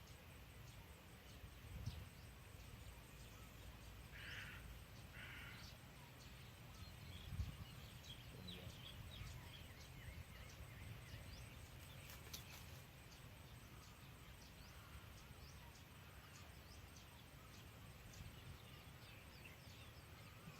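Faint outdoor ambience: a steady low rumble with many short, high chirps scattered throughout, two short buzzy calls about four seconds in, and a soft thump about seven seconds in.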